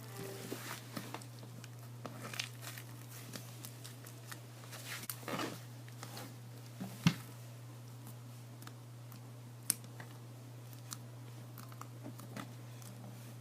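Homemade fluffy slime made with foaming hand wash being squished and poked by hand for ASMR, giving irregular small pops and crackles. A steady low hum runs underneath.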